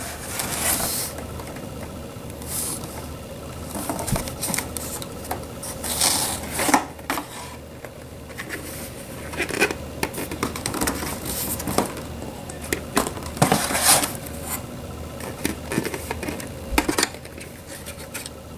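Handling noise from a plastic costume helmet and its cardboard box as the helmet is lifted out: irregular scrapes, rustles and light knocks of plastic against cardboard.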